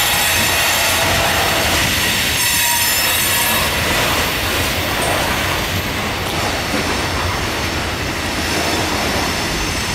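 Loaded coal hopper cars of a freight train rolling past: a loud, steady rumble of steel wheels on rail, with a thin high wheel squeal running over it.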